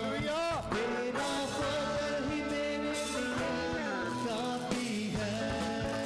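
Live Urdu/Hindi worship song: male voices singing in melody over a dholak hand drum and sustained instrumental notes.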